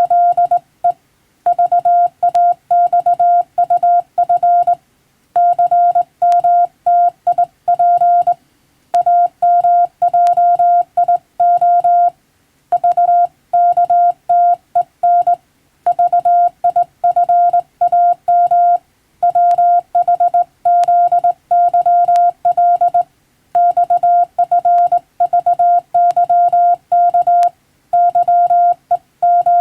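Morse code sent on a telegraph key, heard as a single steady beep tone keyed on and off into dots and dashes, grouped into words by short pauses.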